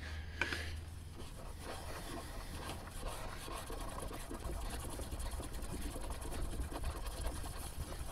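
Steel back of a chisel rubbed back and forth flat on a DMT DuoSharp diamond whetstone, a steady gritty scraping. The back is being lapped flat to remove the last of the burr until it is shiny all over.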